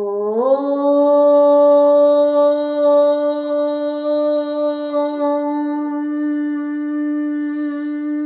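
A woman chanting a long "Om" on a single exhaled breath. The note slides up slightly about half a second in, then is held steady on one pitch.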